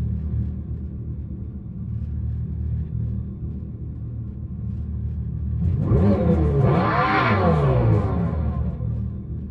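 Dodge Charger Daytona SRT Concept's Fratzonic Chambered Exhaust, the synthesized exhaust sound of a battery-electric muscle car, rumbling deep and low, then about six seconds in a loud rev whose pitch climbs and falls away over about two seconds.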